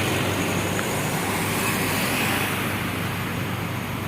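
Road traffic: a steady rush of engine and tyre noise from passing vehicles, easing slightly over the few seconds.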